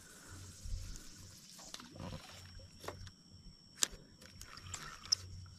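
Faint handling noise while fishing hooks are baited by hand: a few scattered sharp clicks and taps over a low rumble, with a thin steady high-pitched drone behind it.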